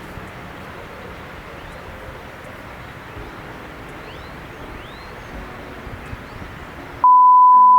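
Steady outdoor background hiss with a few faint bird chirps. Near the end, the background cuts out and a loud, steady single-pitch beep plays for under a second.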